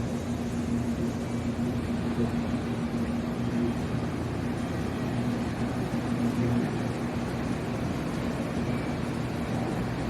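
Steady mechanical hum of a train at a railway station, an even low drone over noise with no sudden events.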